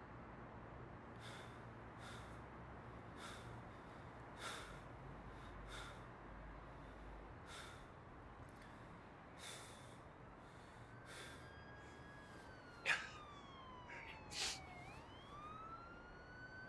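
Faint siren wailing, its pitch sliding down and then back up, coming in about two-thirds of the way through, over quiet hiss. Soft high clicks sound about once a second, with two sharper clicks near the end.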